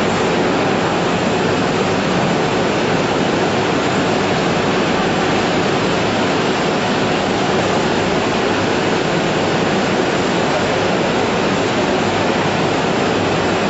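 Chicken processing line machinery running: a loud, steady, unbroken rushing noise with no distinct strokes or tones.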